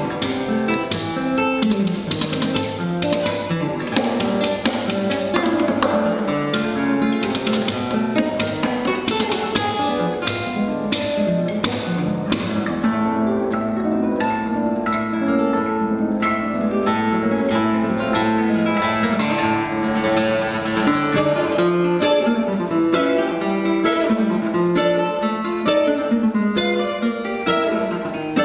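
Two classical guitars playing a duet, busy plucked passages with a calmer stretch of longer-held notes in the middle before the quick plucking returns.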